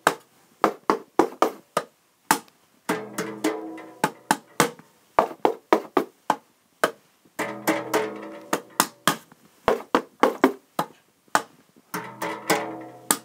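Improvised rhythm played on household found-sound objects: quick, sharp taps and knocks in a repeating pattern. A ringing pitched sound comes in about every four and a half seconds and lasts about a second and a half each time.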